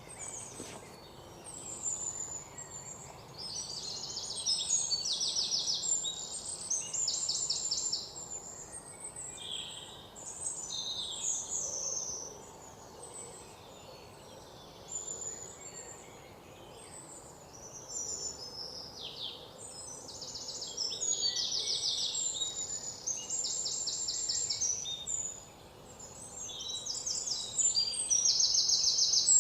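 Birds chirping and singing, with short, fast trills that come again and again over a faint steady hiss.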